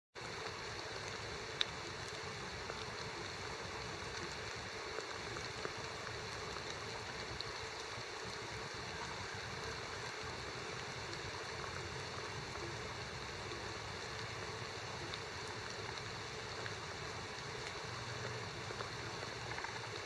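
Steady background noise, even and unbroken, with a few faint clicks.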